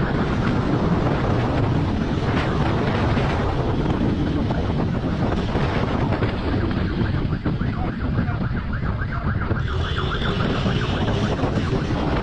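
Heavy wind buffeting on a motorcycle-mounted camera's microphone, with the motorcycle's engine running at speed underneath.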